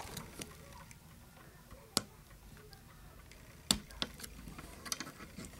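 Lock pick and tension wrench working the sticking wafers of a dirty Yale wafer padlock: scattered light metal clicks, with three sharper clicks about two seconds in and near four seconds in.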